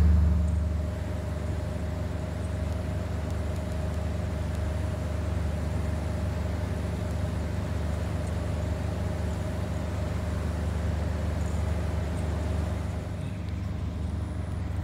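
Steady low rumble of outdoor background noise with a faint steady hum above it, louder for about the first second and then even.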